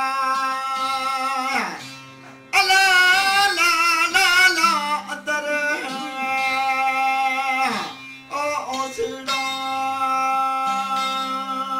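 Male folk singing accompanied by long-necked plucked lutes holding a steady drone. A strong, wavering vocal phrase comes in a couple of seconds in, with shorter sung phrases after it over the unbroken drone.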